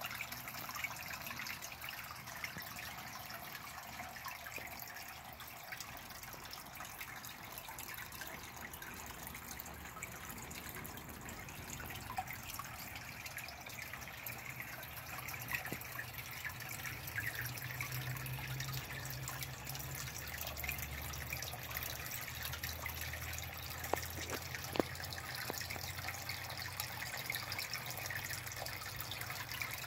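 Water trickling and splashing steadily into a small garden fish pond. A faint low hum joins about halfway through, and there are a couple of faint clicks near the end.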